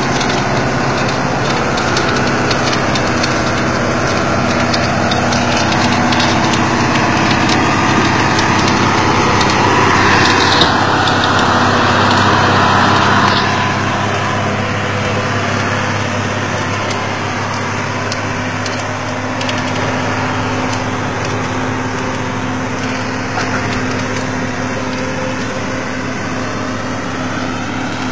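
Truck engine running under load as the truck tries to climb out of deep mud, with a louder, rougher stretch for a few seconds about ten seconds in.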